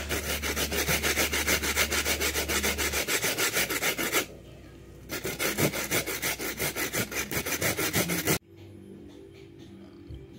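Coconut flesh grated by hand on a flat metal grater: quick, even rasping strokes for about four seconds, a brief pause, then another run of about three seconds that stops abruptly.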